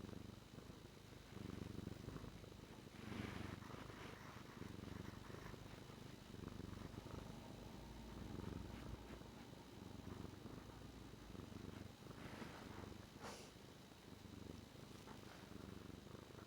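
Domestic cat purring steadily, heard up close through a lavalier mic, with a few soft rustles about three seconds in and again near the end.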